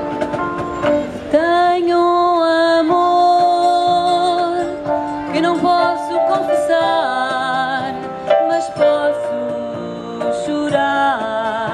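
Live vocal group, mostly women's voices, singing a song with keyboard accompaniment; long held notes with vibrato.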